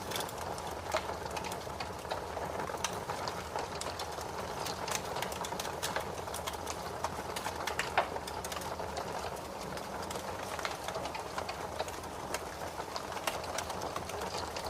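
Wood fire crackling in a fireplace: frequent sharp, irregular pops and snaps over a steady rush of flame, with one louder pop about halfway through.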